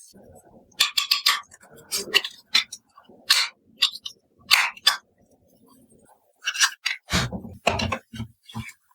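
Plastic toy food and drink pieces being handled and set down: a run of light clicks, clinks and scrapes, with a few duller knocks near the end.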